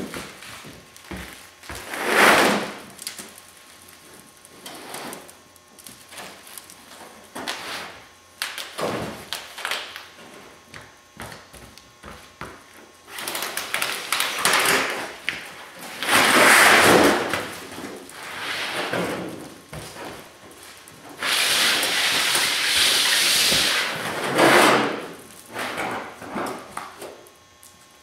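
Rolled aluminum diamond plate sheets being unrolled over cardboard: repeated swells of sheet metal sliding and flexing, the longest lasting about three seconds, with occasional knocks and thuds.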